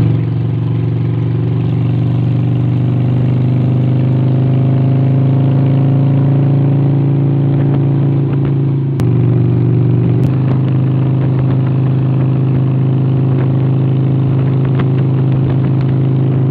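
Cruiser motorcycle engine running steadily at road speed, heard from on the bike, its pitch rising slowly for a few seconds as it speeds up. The sound jumps abruptly about nine seconds in, with a click a second later.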